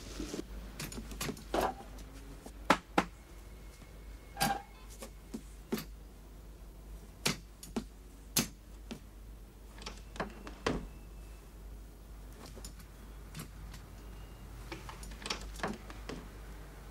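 Irregular knocks and clicks as a metal stepladder is handled and climbed and a high wardrobe cupboard door is opened, with a loud single knock about three seconds in.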